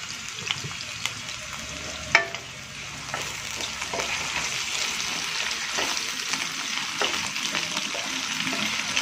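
Cubed potatoes and carrots sizzling as they fry in oil in a wok, with small crackles throughout. There is one sharp knock about two seconds in. From about three seconds in a wooden spatula stirs the vegetables and the sizzle grows louder.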